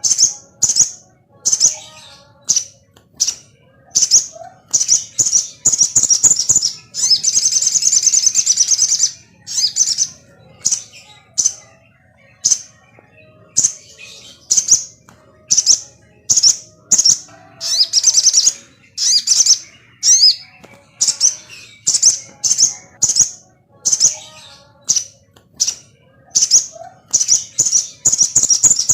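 Sogon songbird singing in short, sharp, high-pitched chirping phrases about once a second, with longer rapid trills now and then. This is a lure recording, played to stir a kept sogon into singing.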